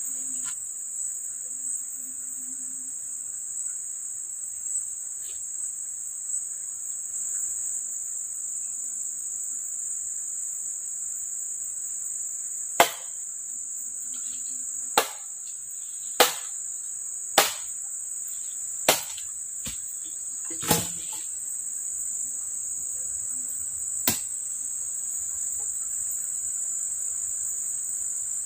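Steady high-pitched insect chorus of crickets or cicadas. Over it, in the second half, come seven sharp knocks on wood, a second or two apart, as the poles of a lashed-pole tree platform are struck or worked.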